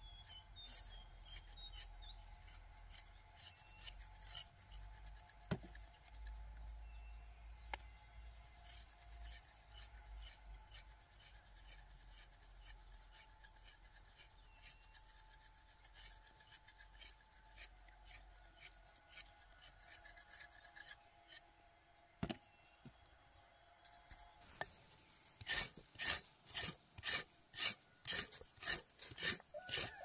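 Repeated rasping, scraping strokes, faint at first, then louder and regular at about two a second over the last five seconds, with a few sharp knocks in between.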